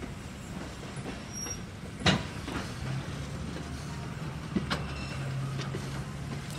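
Passenger coaches rolling slowly past, their wheels clacking over rail joints: one sharp clack about two seconds in and two more in quick succession near the five-second mark, over a steady low rumble and hum.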